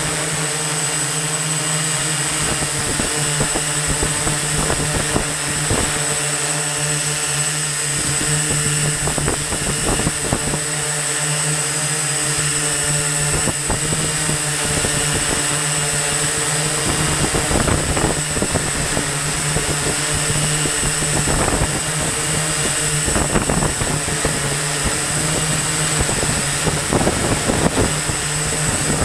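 Multirotor drone's electric motors and propellers running steadily in flight, a constant hum with a thin high whine, heard from a camera mounted on the drone's frame.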